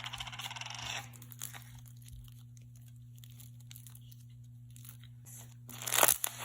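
Foam bead slime being squeezed and stretched by hand, crunching and crackling as the beads pop. A dense run of rapid crackles in the first second, fainter scattered crackles after that, and a louder burst near the end.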